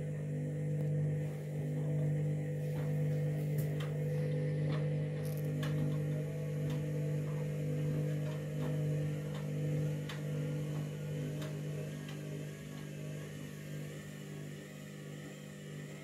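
Candy front-loading washing machine's motor humming steadily as the drum turns a bedding load, with light ticks every second or so, easing off a little near the end. The machine is trying to balance an out-of-balance load and will not go into its final spin.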